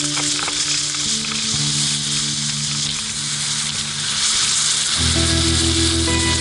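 Snowboard sliding over groomed snow: a steady hissing scrape. Under it runs background music with held notes, and a bass line comes in about five seconds in.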